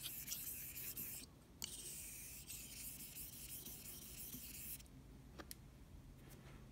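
Razor being honed on a wet Shinden Suita Japanese natural whetstone worked with slurry: back-and-forth strokes make a fine, high scraping, with a short break about a second in. The strokes stop a little before five seconds in, followed by a light tick.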